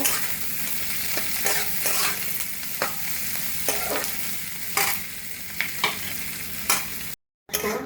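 Food frying in hot oil in a pan, with a steady sizzle. The pan is stirred, and a cooking utensil clicks and scrapes against it every so often. The sound cuts out for a moment near the end.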